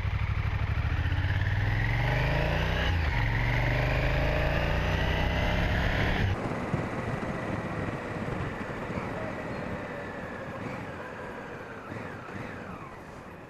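Honda Africa Twin motorcycle engine accelerating, its pitch rising, dipping once and rising again as it pulls through the gears. About six seconds in the sound cuts off suddenly to a much quieter engine sound that slowly fades.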